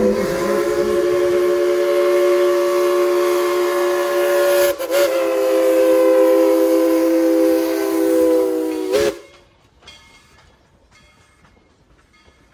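Steam locomotive whistle, No. 190's, sounding a chord of several steady notes together in two long blasts: a short break about halfway, then cut off about nine seconds in.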